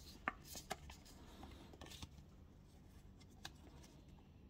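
Faint rustling and a few soft flicks of paper stickers being handled and turned over, most of them in the first two seconds and one more about three and a half seconds in.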